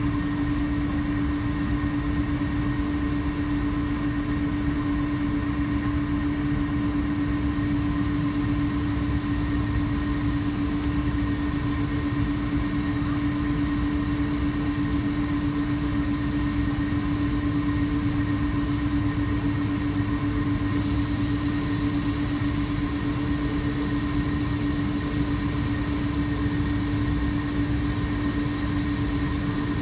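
Jet airliner engines running at a steady setting, a constant hum with a sustained tone over a low rumble, neither rising nor falling.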